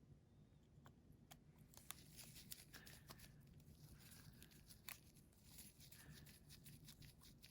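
Faint, scattered small clicks and light scratching of a precision screwdriver driving the tiny screws back into an iPhone 7's frame.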